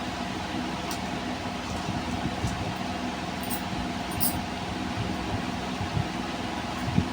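Steady mechanical hum with a couple of steady tones in it, broken by a few soft knocks; the sharpest knock comes near the end.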